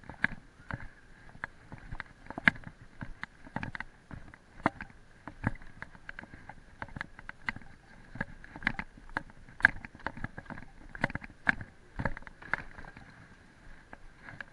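Mountain bike rattling and clacking with irregular knocks and thumps, several a second, as it is taken over a rough dirt path and down concrete steps. Two sharper knocks stand out, one about two and a half seconds in and one near the ten-second mark.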